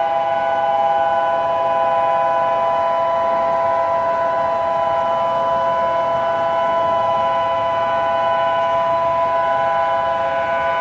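Loud, steady electronic alarm tone: several held pitches sound together as one unbroken chord-like drone, with no rise and fall.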